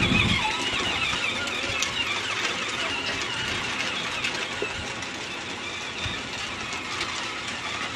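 John Deere battery-powered ride-on toy tractor whirring as its electric motor drives it along, towing a small trailer, with a low bump right at the start.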